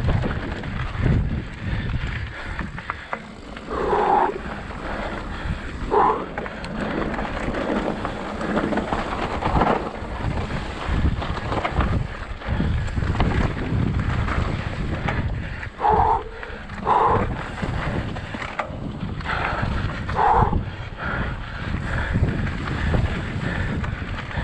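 Wind buffeting the microphone of a camera riding along on a mountain bike, with the rattle and rumble of the ride over the trail. Five short, higher-pitched squeals or calls break through, two close together about four to six seconds in and three more later on.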